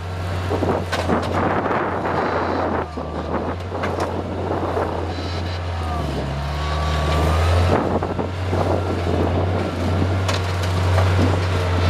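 Bobcat 743 skid steer's engine running under load while its root-digger bucket tears a small tree out by the roots. The engine's low drone sags in pitch for a couple of seconds past the middle, then picks back up. Wind buffets the microphone.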